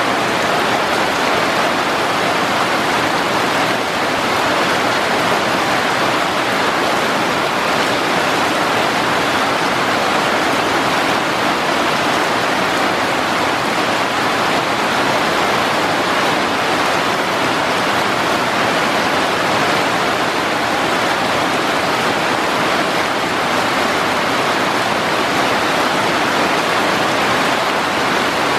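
Heavy rain falling on rainforest foliage: a loud, steady rushing hiss with no breaks.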